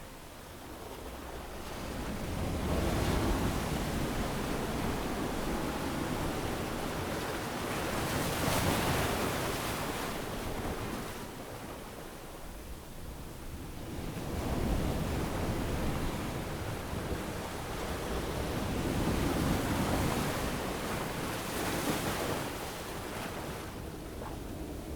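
Gentle ocean waves breaking and washing up a sandy beach, the surf swelling and fading in slow surges about every five or six seconds.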